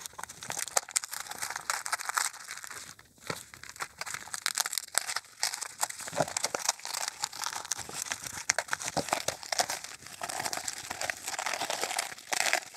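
Scissors cutting open a taped-up mailer package, with the packaging crinkling and crackling as it is cut and handled.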